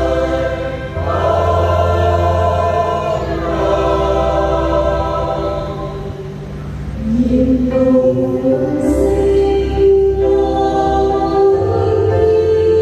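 Church choir singing a hymn in several voice parts, with long held notes and a steady low bass underneath.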